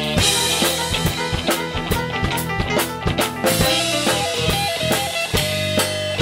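Live rock band playing an instrumental passage with no singing: drum kit with bass drum and snare, electric guitars and bass, and a Nord Stage Compact keyboard, with a quick run of melody notes over the beat.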